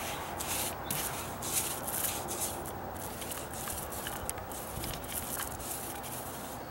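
Paint roller rolling wet primer onto a deck stair tread: a rubbing swish in repeated back-and-forth strokes. The roller cover is not spinning well and partly slides over the surface.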